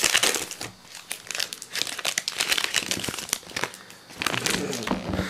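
Foil wrapper of a Pokémon Diamond and Pearl booster pack crinkling and crackling in quick, irregular bursts as it is handled and opened, loudest near the start.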